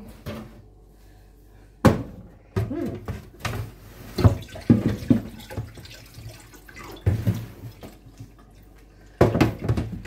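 Food packages and plastic bags being handled inside an open refrigerator: scattered knocks as items are picked up and set down, with rustling of plastic between them.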